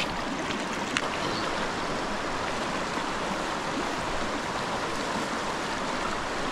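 Steady rush of a shallow, rocky river flowing over stones, with a brief click about a second in.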